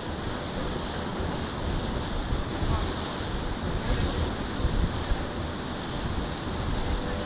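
Wind buffeting the microphone on the deck of a moving boat, over a steady rush of water.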